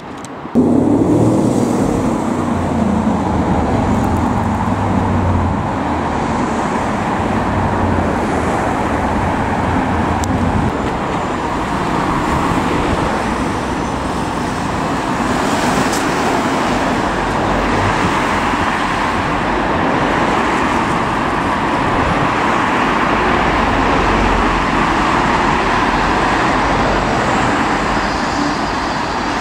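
Busy road traffic: cars and vans driving past, engine and tyre noise, with a deeper engine rumble over the first ten seconds or so.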